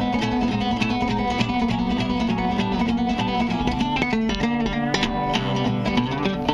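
Acoustic guitar fingerpicked in a quick run of single notes over lower strings that keep ringing.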